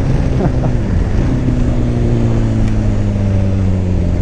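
Motorcycle engine running under way, over a dense steady rush of noise. Its pitch rises briefly about half a second in, then eases slowly down over the last two seconds.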